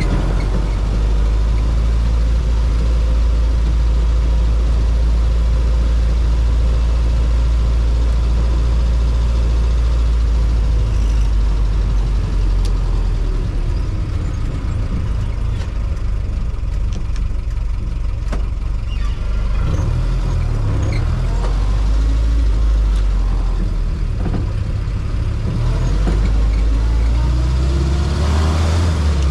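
Jeep CJ-5's engine running under way, over the rumble of road and wind noise. The engine note rises and falls as it is driven through the gears, rising again near the end.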